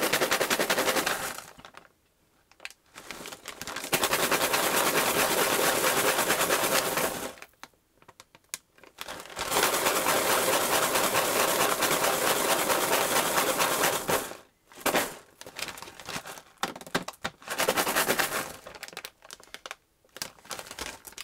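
Dozens of plastic SKCM Blue Alps switch stems rattling inside a Ziploc bag as it is shaken to spread a thin film of lube over them. The rattling comes in long bouts of several seconds with short pauses, then in shorter shakes near the end, with the bag crinkling.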